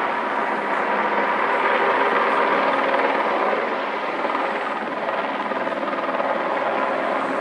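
Single-engine light helicopter hovering and air-taxiing close by: a steady mix of turbine whine and rotor noise that swells a little about two seconds in and eases slightly near five seconds.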